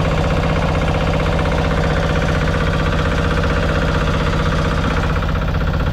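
Fishing boat's engine running steadily at a constant speed, an even, fast-pulsing hum.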